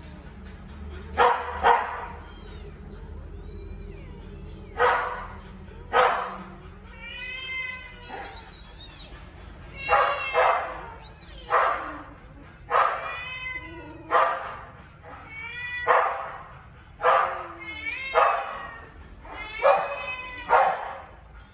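Two kittens fighting over food, trading about a dozen sudden angry outbursts: sharp hisses and spits alternating with wavering, drawn-out yowls.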